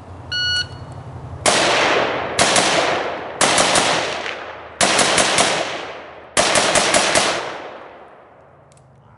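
A shot timer gives one short start beep, then an AK-pattern rifle fires five quick strings of shots, the last two strings longer than the first, each followed by echoing ring-out. This is the run of a timed rifle drill.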